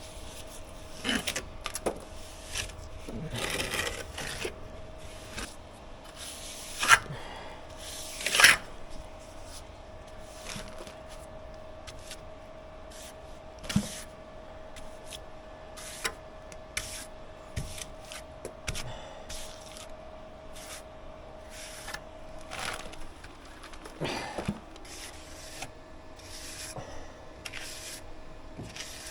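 Scattered knocks, clicks and scrapes of tools and building materials being handled, with two louder knocks about seven and eight and a half seconds in. A faint steady hum runs underneath and stops about two-thirds of the way through.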